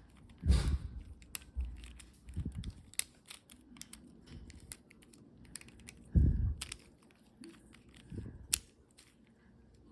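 Plastic Rubik's cube being turned by hand, its layers clicking in quick, irregular bursts of turns. A few dull thumps break in, about half a second in, around six seconds and again around eight seconds.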